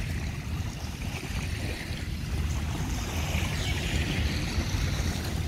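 Small waves washing onto a sandy beach, with wind rumbling on the microphone as a steady low buffeting.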